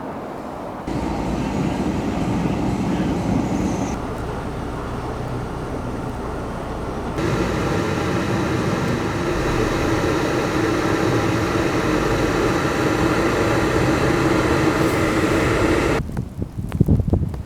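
Vehicle engine and road noise on snowy roads, in several short clips that change abruptly. In the last second or so, wind gusts buffet the microphone.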